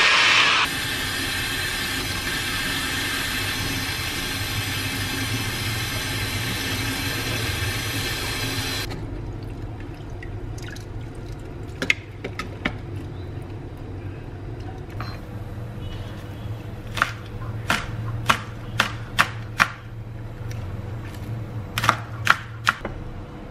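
A hair dryer blowing hard, cut off within the first second. Then tap water runs into a steel sink over a colander for several seconds. Later a kitchen knife chops spring onions on a wooden cutting board: sharp knocks in short runs of about two a second near the end.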